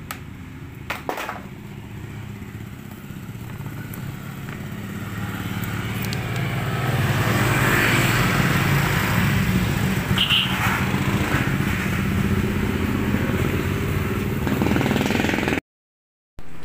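A 110 cc pitbike's single-cylinder engine idling steadily, growing louder a few seconds in and staying loud. A couple of light clicks come about a second in, and the sound cuts off abruptly near the end.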